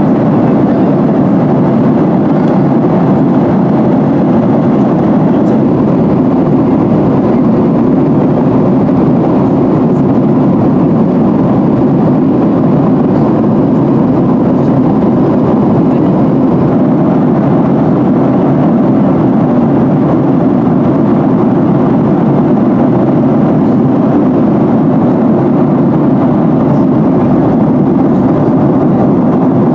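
Steady in-flight cabin noise of a Boeing 737-800: the constant rush of airflow and the drone of its CFM56 turbofan engines, heard inside the cabin. It stays even throughout, with no change in thrust.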